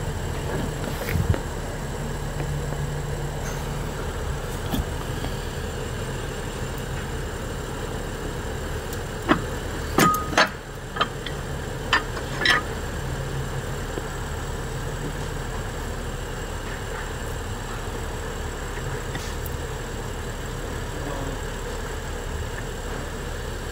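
Car engine idling steadily, with a few sharp metallic clicks near the middle.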